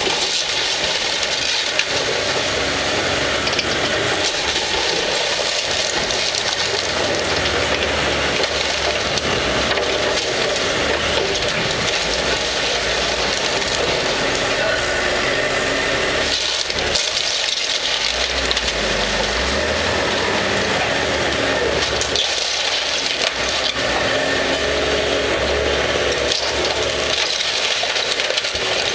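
CAT 312C excavator's diesel engine running under load while its bucket tears into a wooden building, with continuous crackling and splintering of wood and debris.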